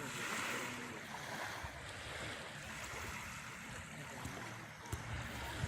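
Sea surf: waves washing in as a steady rushing noise, swelling just at the start, with a couple of short low thumps near the end.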